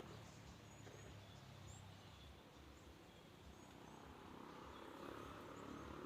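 Near silence: faint rural outdoor ambience with a low steady rumble and scattered brief, high bird chirps.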